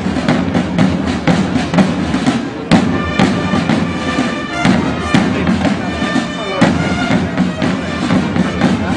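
A corps of field drums beating a fast, dense marching rhythm together. From about three seconds in, a wind instrument joins with steady held notes over the drumming.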